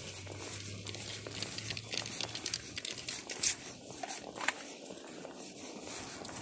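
Footsteps and a Lufkin measuring wheel rolling over dry, dead grass and leaves: a crisp crunching and crackling with many small irregular clicks. The sharpest click comes about three and a half seconds in.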